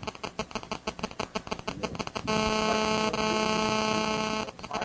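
Electrical interference buzz in a microphone or sound system. It opens as a rapid crackling pulse, turns to a steady buzzing hum a little over two seconds in, and cuts off suddenly near the end.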